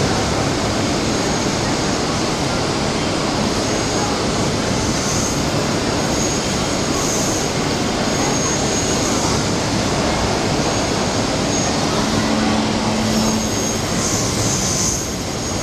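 CNC machine running: a loud, steady mechanical noise, with a faint high whine that comes and goes every second or two.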